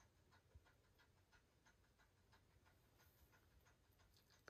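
Near silence: room tone with very faint, regular ticking, about three or four ticks a second.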